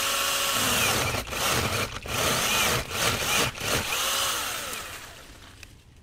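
Cordless battery-powered AKOIY mini chainsaw on an extension pole cutting through a tree limb, its electric motor and chain whining with the pitch sagging and recovering as the chain bites into the wood, with several brief dips. The saw winds down about four and a half seconds in as the cut finishes.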